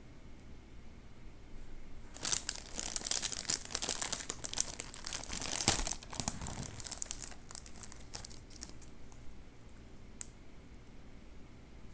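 Plastic wrapper of an Oreo cookie pack crinkling and tearing as it is pulled open, starting about two seconds in and densest for about four seconds, then lighter crinkles. A single light tick near the end.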